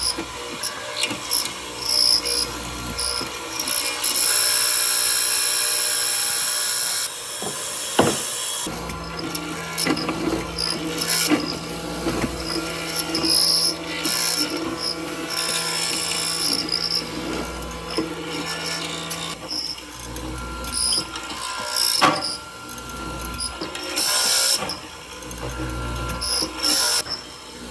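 Workshop tool noise in a string of changing passages: a power tool running steadily for about ten seconds in the middle, with scattered sharp knocks from wood being worked.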